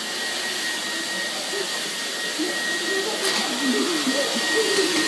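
Vacuum cleaner running steadily, with a thin, steady high whine over its rushing noise.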